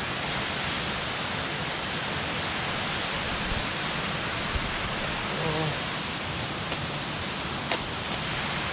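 Waterfall in heavy flow, a steady full rush of falling water.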